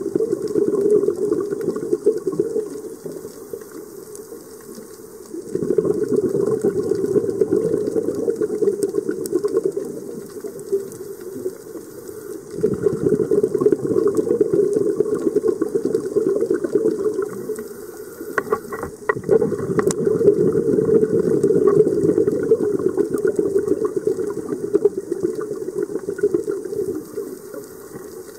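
Scuba regulator exhaust bubbles heard underwater: a diver's exhaled breath bubbling out in long bursts about every seven seconds, with quieter gaps between breaths. A few sharp clicks come about two-thirds of the way through.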